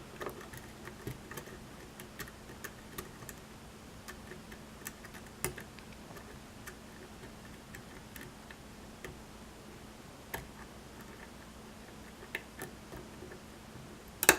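Small, irregular clicks and ticks of a lock pick working the pins of a pin-tumbler lock held under tension, with a sharper double click near the end.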